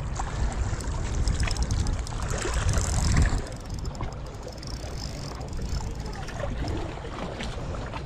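Wind rumbling on the microphone over water washing against shoreline rocks, louder for a moment about three seconds in.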